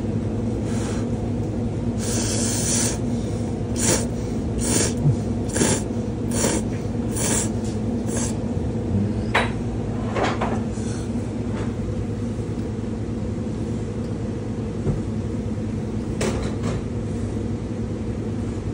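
Someone slurping thin ramen noodles: one longer slurp, then a run of short slurps about once a second, and a few more later on. A steady low hum runs underneath.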